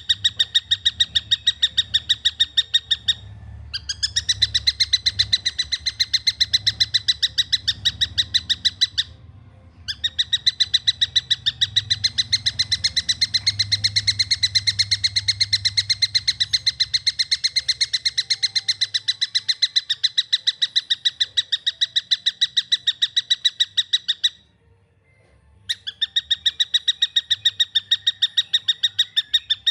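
Young tengkek buto (kingfisher) calling in long, fast runs of rapidly repeated, evenly spaced notes, broken by short pauses about three seconds in, around nine seconds in, and near the end.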